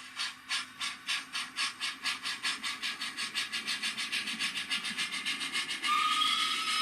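Simulated steam exhaust chuffs from the sound decoder of a Rapido OO-gauge model of the locomotive Lion, speeding up steadily as the engine gathers pace. A steady whistle tone comes in near the end.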